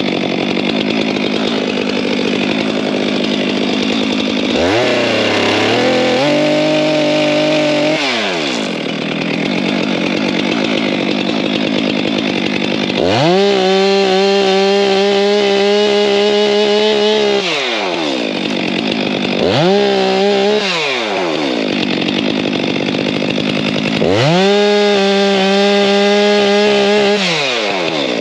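Small chainsaw idling and revving up to full speed four times, each rev climbing, holding high for a few seconds (one only briefly) and dropping back, as branches are cut off a felled pine tree.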